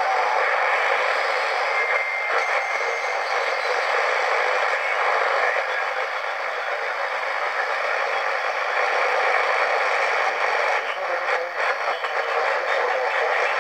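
Old portable radio receiver's speaker giving out a steady hiss of static, with a faint brief whistle about two seconds in and a few crackles near the end.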